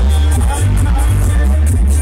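Dub reggae played loud through a street sound system, with a deep, heavy bass line carrying the music.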